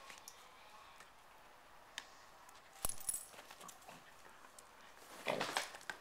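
Small dogs scuffling on bedding: faint rustles and clicks, a brief metallic jingle about three seconds in, and a louder rustling scuffle near the end.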